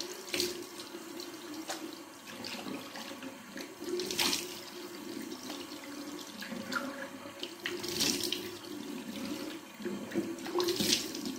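Bathroom sink tap running while water is splashed onto the face by hand to rinse off a cream cleanser. Four louder splashes come every three to four seconds over the steady flow.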